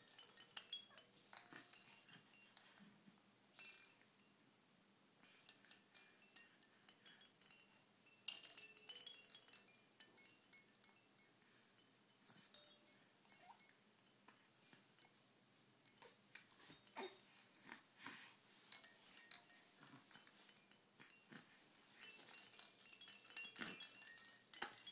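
Hanging toys on a baby play gym clinking and jingling irregularly as the baby kicks at them, with light chime-like tinkles, busiest near the start and the end.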